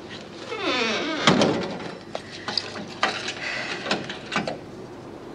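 A door closing with a heavy thunk about a second in, followed by a few faint clicks.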